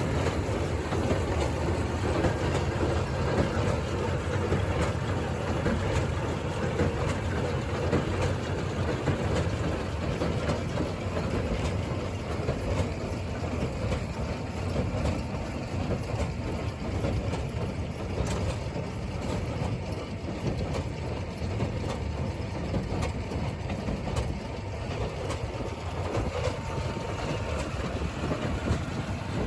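Farm tractor running steadily while hauling a trailer across a field, with the trailer and load rattling and clattering over the ground.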